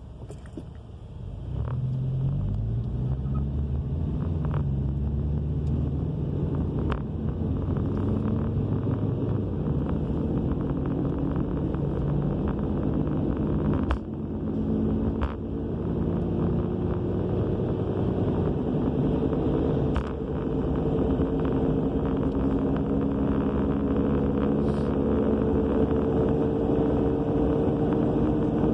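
2000 Subaru Legacy AWD heard from inside the cabin as it pulls away and gathers speed, a low roar whose pitch climbs with speed. The owner says the loud roar comes from the rear end and persists despite a new wheel bearing, brakes, calipers and rotors.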